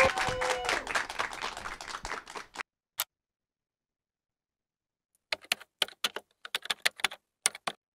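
Audience applauding, cut off abruptly about two and a half seconds in. After a silence, a single click and then a quick run of computer keyboard keystrokes, typing a search term.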